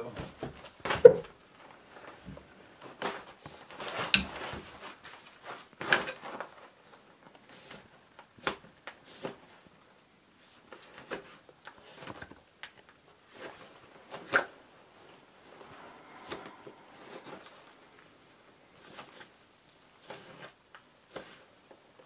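Puukko knife whittling a small piece of wet wood: irregular short cuts and scraping strokes as thin shavings are pared off, the sharpest cut about a second in.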